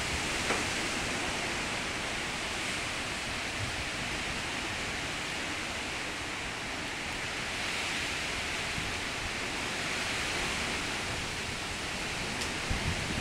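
Heavy rain and wind of a thunderstorm, a steady, even hiss.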